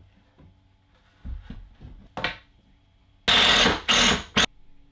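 Timber and tools being handled while fitting a worktop frame to a wall: a few soft knocks, then three short bursts of loud scraping noise near the end, the first and longest lasting under a second.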